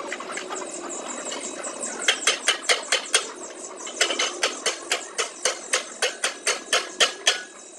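Rapid metal-on-metal tapping, about four strikes a second, as a steel rod is knocked against the bolt at a tricycle's handlebar stem. The first two seconds hold only fainter clicks and handling noise before the steady tapping starts.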